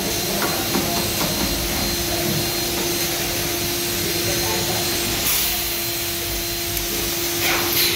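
Workshop machinery running steadily, a motor-like hum with a hiss over it. A few light clinks of small metal parts being handled in the first second.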